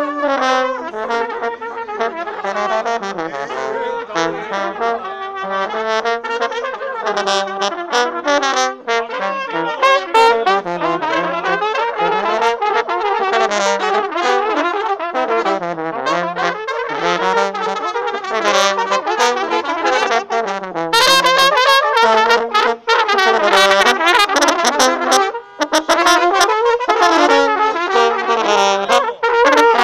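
Balkan brass trumpeters (trubači) playing: trumpets carry a winding, ornamented melody over a lower accompanying line, getting louder about two-thirds of the way through.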